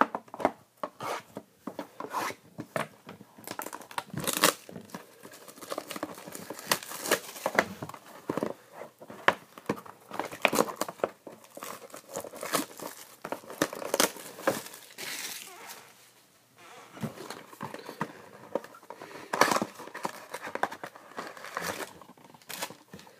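Plastic shrink-wrap being torn off a sealed trading-card box and crumpled, with cardboard boxes handled as it is opened: a run of irregular crackles and tears with a short lull about two-thirds of the way through.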